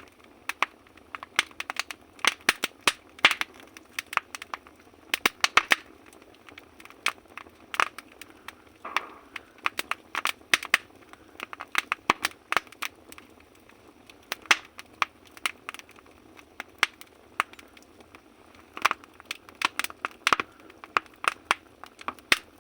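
Firewood crackling in a wood stove: irregular sharp pops and snaps, often in quick clusters, thinning out for a few seconds midway.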